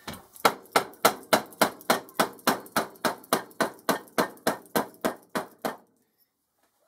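Hammer tapping on a metal tube held over a ball bearing, driving the bearing onto a Boxford lathe drive shaft. About twenty sharp, evenly spaced taps, roughly three a second, stopping just before the end.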